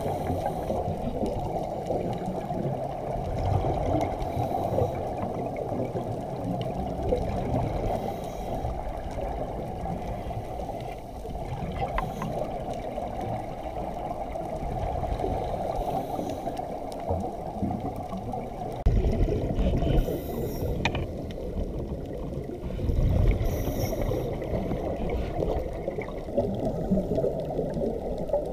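Underwater ambient sound heard through a camera's waterproof housing: a steady, muffled low rush of water, with a few louder surges about two-thirds of the way in.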